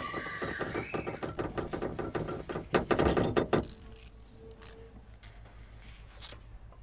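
Mechanical clicking and ratcheting like gears turning, a robot-movement sound effect: a rapid run of clicks that grows loudest about three seconds in and then breaks off. A brief low hum and a few faint clicks follow.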